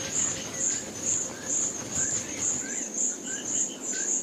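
A high-pitched insect call pulsing evenly about twice a second, with short rising bird chirps scattered through it.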